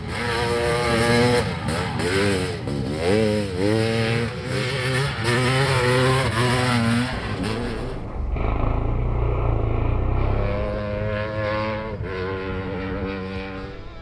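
Honda CR500 single-cylinder two-stroke dirt bike engine revving hard while being ridden, its pitch climbing and dropping repeatedly with the throttle and gear changes. About eight seconds in it gives way to a deep low rumble for a couple of seconds, then the engine holds a steadier high pitch.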